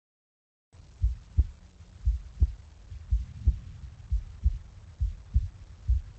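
Human heartbeat sounds: a steady lub-dub about once a second, each beat a pair of low thuds (the first and second heart sounds, made as the heart's valves close), starting just under a second in over a faint low hum.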